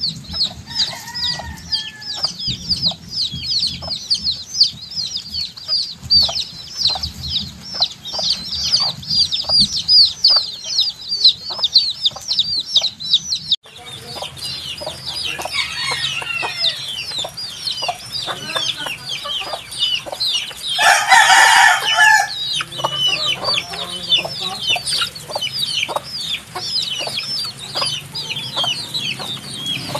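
A brood of baby chicks peeping continuously, many short, high, falling-pitch peeps overlapping. The sound breaks off briefly about halfway through, and about two-thirds of the way in one louder, drawn-out call of about a second and a half stands out over the peeping.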